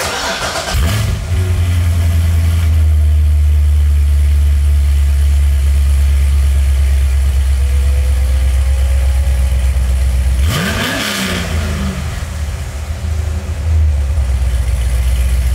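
Chevrolet Corvette C6 Z06's 7.0-litre LS7 V8, fitted with long-tube headers and a catless X-pipe into the stock NPP mufflers, starting up about a second in and settling into a loud, steady idle, with one quick throttle blip about ten seconds in.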